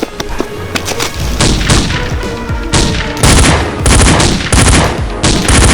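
Bursts of gunfire, a series of short volleys about two a second, over background music.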